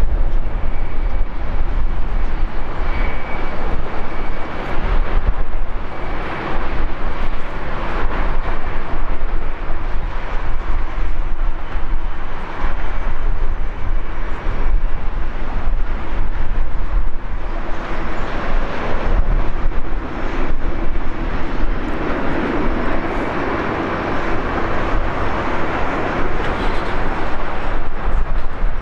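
Embraer 190 jet airliner's GE CF34 turbofan engines running at taxi power: a steady jet rumble with a faint whine, growing louder in the second half.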